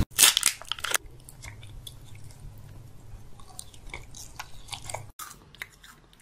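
Close-miked mouth sounds of chewing and biting: sharp wet clicks and smacks, loudest in the first second, then softer and scattered.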